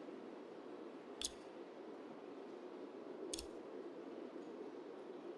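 Steady, dull rain noise, slowed down so it sounds low and muffled, with two sharp clicks about a second in and again past three seconds.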